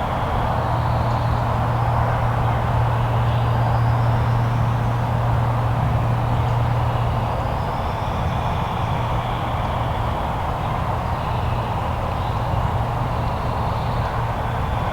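Steady low rumble of a vehicle running, with an even hum and road-like noise.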